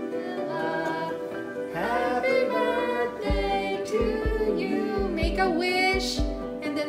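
Music with several singing voices over steady instrumental chords; a regular drum beat comes in about three seconds in.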